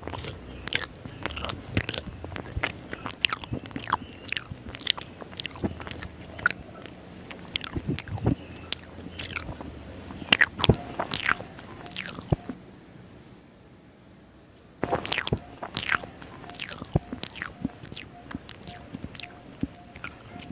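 Close-up mouth sounds of eating chicken liver curry and rice by hand: wet chewing and sharp lip smacks in a quick run, with a pause of about two seconds past the middle.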